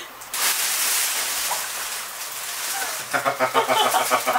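A steady hiss starts suddenly and fades, then about three seconds in a rapid, chicken-like clucking cackle starts and keeps going.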